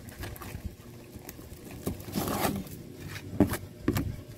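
Scissors snipping through plastic strapping on a cardboard carton: a few sharp snips and clicks, with a longer rustle of plastic wrap against cardboard about two seconds in.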